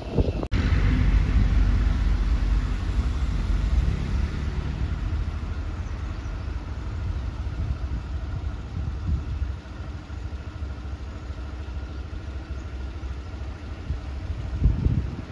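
A vehicle on the move: a steady low rumble of engine and road noise, loudest in the first few seconds and easing off after that. It cuts out for an instant about half a second in.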